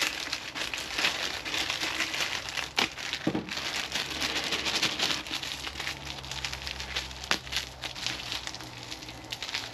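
Clear plastic parts bag crinkling and crackling as it is handled and worked open by hand, with many small sharp crackles.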